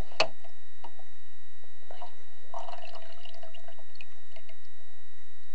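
Steady electrical hum, with a couple of sharp clicks about a quarter-second in and faint scattered taps and drips over it.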